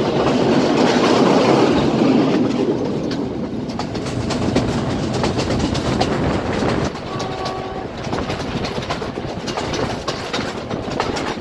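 Express train rolling past, its wheels clacking over the rail joints in a steady rumble that eases slightly after the first couple of seconds. A brief steady tone sounds about seven seconds in.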